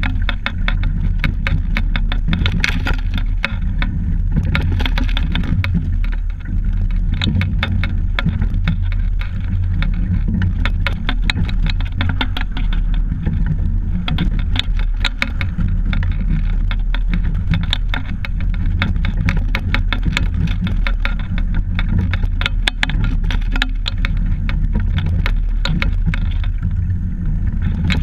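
Rowing double scull moving through the water, heard through a camera fixed to the boat: a steady low rumble of hull and water with a dense crackle of fine ticks on top.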